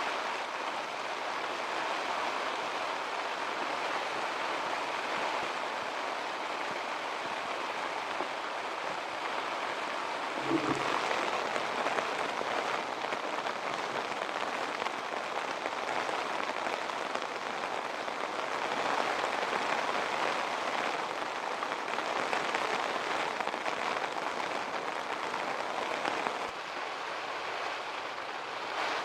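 Heavy rain falling steadily on the tent, an even unbroken hiss of drops, with one brief soft thump about ten seconds in.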